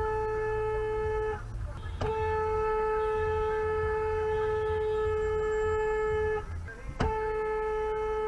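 Car horn held down in long, steady blasts of one unchanging pitch: one blast ends about a second and a half in, the next lasts about four seconds, and a third starts near the end. A low, steady rumble lies beneath.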